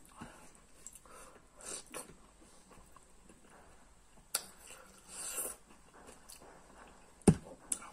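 Close-miked eating sounds: a man chewing and smacking his lips over chicken curry eaten with his fingers, with scattered sharp clicks. A louder sharp knock comes near the end.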